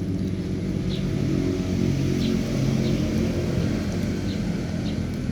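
A motor engine running with a steady low rumble, with faint short high chirps about once a second.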